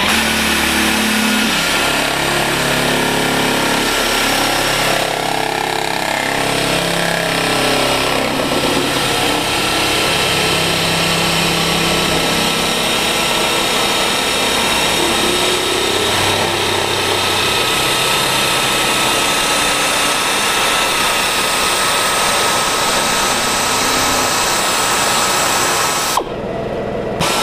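Air-operated hand shear running continuously as it cuts through sheet-steel patch panel, a steady mechanical buzz with a constant thin whine. It stops about a second before the end, then starts again briefly.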